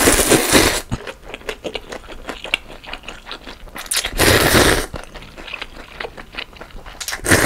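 Rice noodles of pho slurped loudly from a spoon three times: at the start, about four seconds in, and near the end. Wet chewing fills the gaps between slurps.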